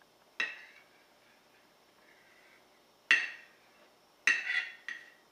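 Kitchen knife clinking against a ceramic plate as it cuts through a baked acorn squash half: four sharp clinks with a brief ring, one about half a second in, one just after three seconds, and two close together near the end.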